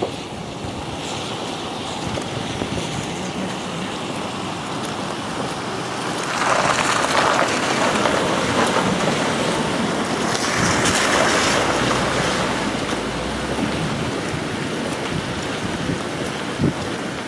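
Wind blowing over the microphone, a steady rush that swells into two stronger gusts, each about two seconds long, about six and ten seconds in.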